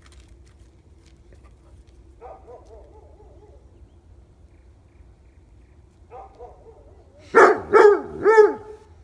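A dog barking three times in quick succession near the end, after two faint, short calls earlier.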